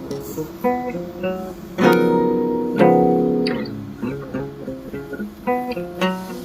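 Background acoustic guitar music: picked notes, with two fuller strummed chords about two and three seconds in.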